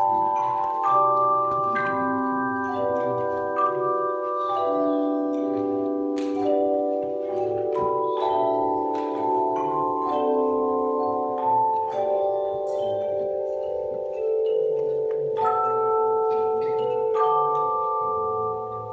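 Handbell choir playing a piece: several bells struck together in chords, each note ringing on and overlapping the next, with a new chord every second or two.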